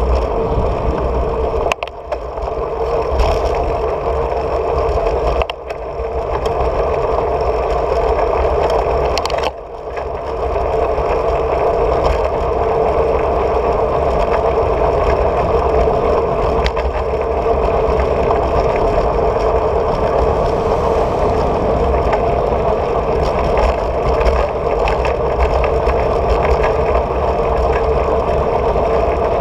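Steady rushing wind and tyre noise from a bicycle rolling along an asphalt road, heard from a handlebar-mounted camera. The noise briefly drops three times in the first ten seconds.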